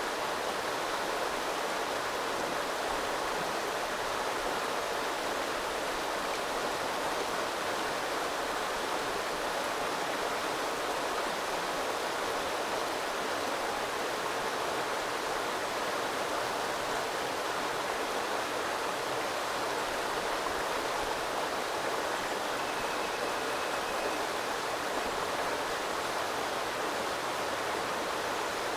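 Small river flowing: a steady, even rush of running water.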